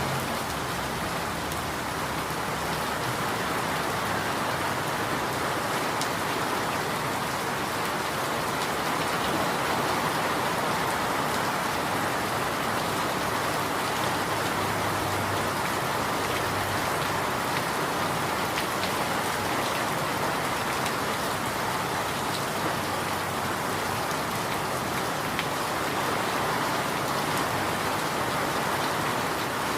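Steady rain falling: an even hiss of many drops with faint scattered ticks of single drops.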